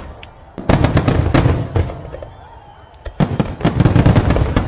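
Aerial fireworks bursting in two loud volleys of rapid bangs and crackles: the first starts about half a second in and dies away by about two seconds, the second starts about three seconds in and carries on.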